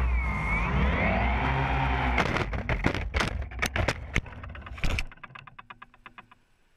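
DJI Phantom quadcopter's motors whining as it falls, their pitch dipping and rising, then a run of sharp cracks and thuds as it crashes through the trees and hits the ground, then a fast ticking that fades out.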